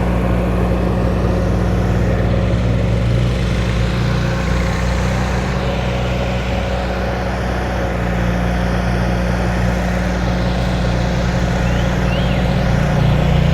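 An engine idling steadily nearby, a constant low hum.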